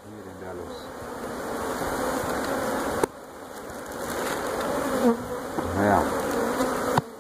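Honeybees from a freshly opened wild colony buzzing in a dense swarm around the comb being cut out. The buzzing drops suddenly about three seconds in and then swells again.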